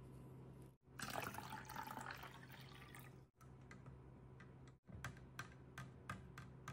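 Water splashing in a clear plastic tube as a small plastic doll is dunked and swished in it, for about two seconds starting a second in. Later come a series of light clicks of the doll knocking against the plastic tube.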